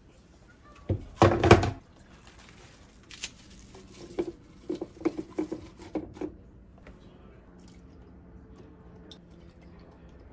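A short clatter of kitchenware about a second in, then soft crinkling and light taps as handfuls of fresh kale leaves are pushed into a plastic blender cup.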